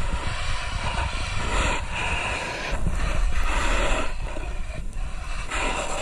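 Snowboard edges scraping and skittering over hard, icy snow, a continuous rough hiss, with wind rumbling on the camera's microphone.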